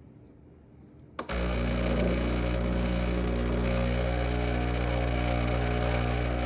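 Breville BES870XL espresso machine starting its cleaning cycle: a click about a second in, then its pump comes on and runs with a loud, steady hum.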